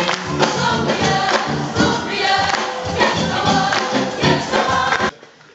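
Gospel choir singing into microphones, backed by a live band with a steady beat. The music cuts off abruptly about five seconds in.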